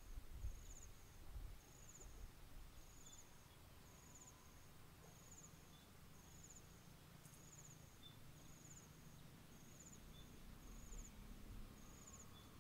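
Faint insect chirping outdoors: a short, high-pitched trill repeated steadily about once a second, over a low rumble.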